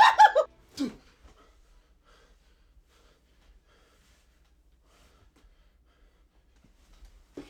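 A person's short, voice-like sound lasting about a second, then a quiet room with only faint scattered ticks, and a brief sound just before the end.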